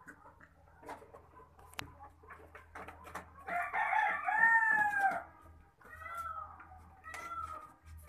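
A rooster crows once, loudly, a long call lasting under two seconds that starts about three and a half seconds in. It is followed by a few short clucking calls from the caged chickens.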